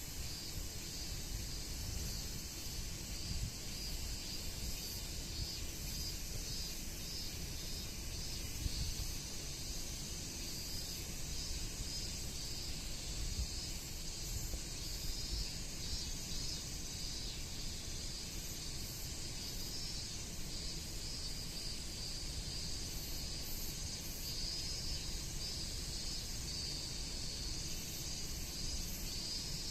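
Strong wind buffeting the microphone in a fluctuating low rumble, over a steady high hiss of insects, with short high chirps coming and going.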